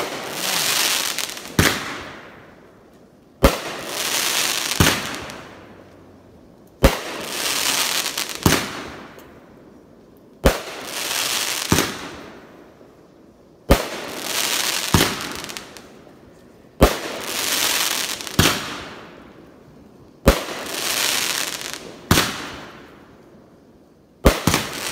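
Aerial fireworks going off in a regular series, about one shot every three and a half seconds, seven in all. Each shot is a sharp bang, then a fading hiss, then a second bang about a second and a half later.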